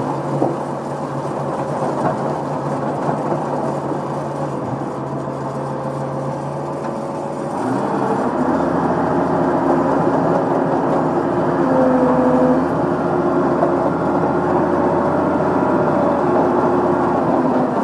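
Crawler track loader's diesel engine running steadily, heard from the operator's seat. About eight seconds in it grows louder and deeper, with a whine riding over it as the machine works.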